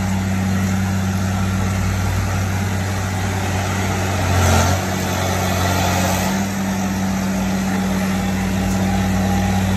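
Engine of a rail tamping machine running steadily, a constant low drone, briefly louder about halfway through.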